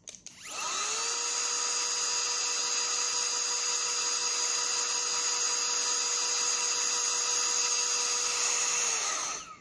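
Cordless electric air duster's motor spinning up to a steady high whine over a rush of air, then winding down and stopping near the end. It is blowing through its brush nozzle into a phone's headphone jack to clear out dust.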